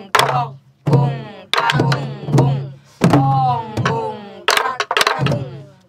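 A group of buk, the Korean barrel drums that accompany pansori, played together with sticks and palms in a practice drum pattern. Each stroke is a sharp crack followed by a low boom, about one to two strokes a second, with a voice chanting along.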